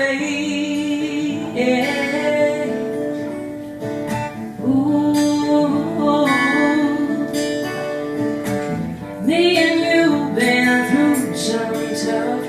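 Acoustic guitar strummed live, with a woman singing over it.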